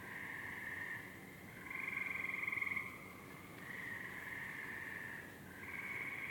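A night chorus of frogs trilling: several long, overlapping trills, with one louder, closer trill from just under two seconds in to about three seconds in.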